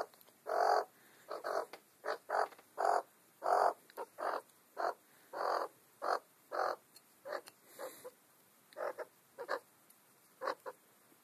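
Australian magpie giving a string of short, croaky calls, one or two a second, fewer and fainter in the second half, while being hand-fed.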